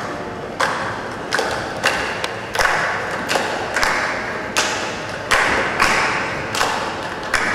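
Live ensemble music with a steady pulse of sharp accents, about one every two-thirds of a second, each ringing out briefly.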